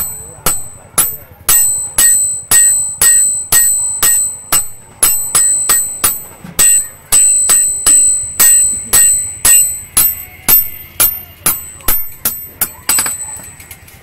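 Hand hammer forging a hot steel knife blade on an anvil: evenly paced blows about two a second, each with a high metallic ring. The hammering stops shortly before the end.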